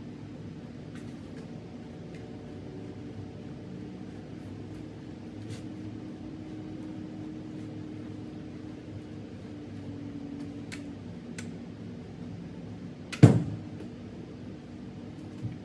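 Steady mechanical hum of an ice arena's air-handling machinery, with a few faint clicks. About thirteen seconds in comes one sharp, loud knock, and a smaller knock near the end.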